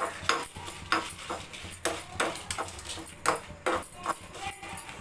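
Steel spoon stirring dried red chillies and coriander seeds in a small aluminium pan, with irregular clinks and scrapes of spoon on metal and the dry spices rattling. The spices are dry-roasting without oil in the pan's leftover heat, the stove just switched off.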